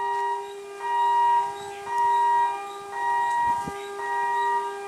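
An electronic warning siren sounding a repeating pattern: a steady low tone under a higher tone that pulses on and off about once a second.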